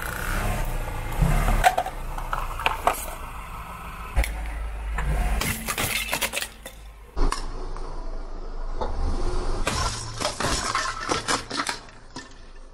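Brittle objects cracking and crunching under a slowly rolling car tyre, a run of sharp snaps and clinks that is thickest in the second half, over the car's low engine hum.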